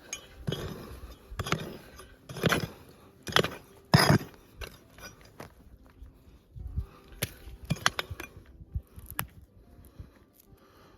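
Pick digging into gravelly ground, striking about once a second for the first four seconds, then lighter clinks and scrapes of soil and stones.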